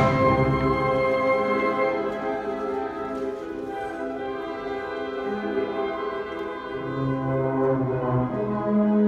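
Student concert band of woodwinds and brass playing sustained, held chords. The playing starts loud, drops to a soft passage about two seconds in, and swells again near the end.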